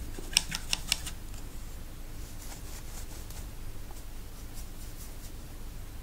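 A paintbrush is rinsed in a jar of water, giving a quick run of clicks in the first second as it knocks against the jar. This is followed by faint scratching as the brush works paint in a plastic palette.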